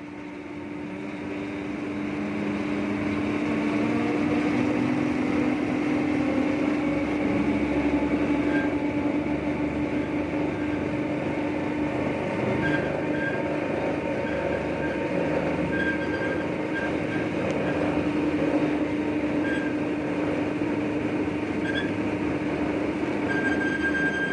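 Ship's anchor windlass running, the anchor chain rumbling steadily with a constant hum. It grows louder over the first few seconds, and short high squeals come and go from about halfway on.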